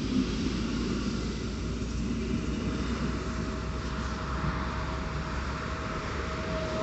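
Electric multiple unit running noise as a Koleje Mazowieckie train pulls away. From about three seconds in, a faint steady whine grows louder as an SKM Warszawa electric train approaches.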